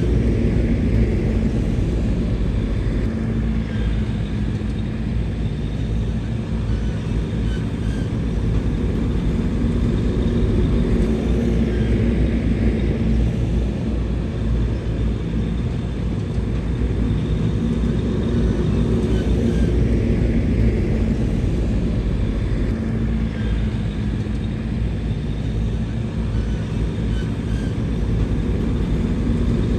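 Bulldozer's diesel engine running steadily under work, its pitch and level rising and easing slightly every few seconds as the load changes.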